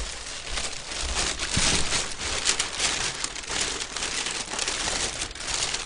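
Plastic carrier bag rustling and crinkling as it is carried and handled, a continuous dense crackle.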